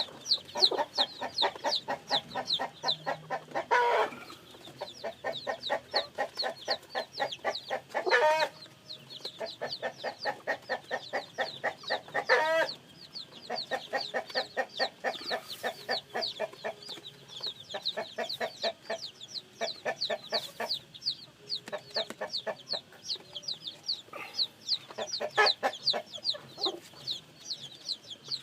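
Chicks peeping continuously in rapid, high, downward-sliding cheeps, over a hen clucking in quick low runs. A few louder, longer chicken calls come through at intervals.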